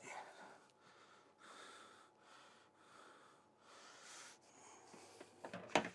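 Faint breathing picked up close on a clip-on lapel microphone: soft breaths in and out, one after another, with a short, louder sound near the end.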